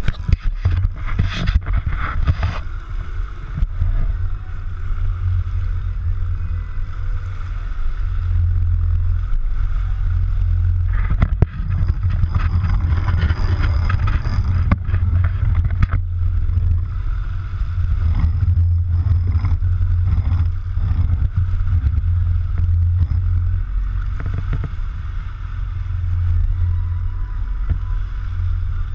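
Steady low rumble of a fishing boat at sea, its engine running with water washing along the hull. There are a few sharp clicks in the first couple of seconds and another cluster about eleven seconds in.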